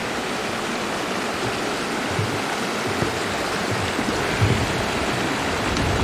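Rocky mountain stream rushing over boulders and small rapids, a steady watery hiss, with a few low thumps in the second half.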